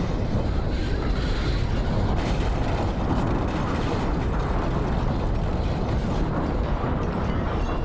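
Steady, deep rumbling of an earthquake, with debris crashing down as buildings shake and collapse.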